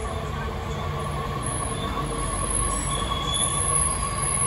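Beijing Subway Line 8 train pulling into an underground station: a continuous low rumble with a steady high-pitched whine, growing a little louder as the cars pass.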